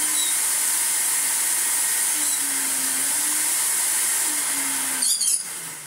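Electrolux Dolphin 1000 cylinder vacuum cleaner running, a steady rush of air over its motor hum. A few clicks just after five seconds, then the motor begins to wind down.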